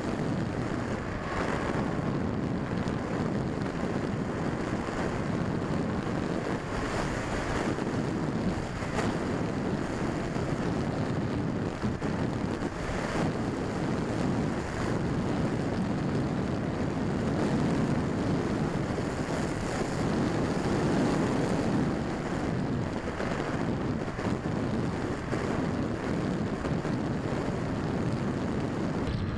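Steady rush of wind over the onboard camera's microphone on a Quanum Observer model plane, gliding with its motor throttled off.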